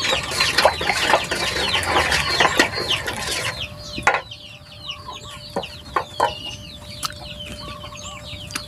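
Chickens and chicks calling: many short, high, downward-sliding peeps, dense for the first three and a half seconds and sparser after. A few sharp knocks come from the bamboo stick stirring liquid in the metal bowl.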